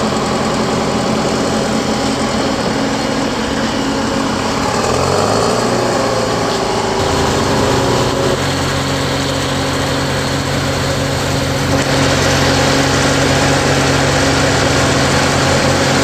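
Lattice-boom crane's diesel engine running steadily, picking up revs about five seconds in and holding a higher, stronger note from about seven seconds on as the crane works.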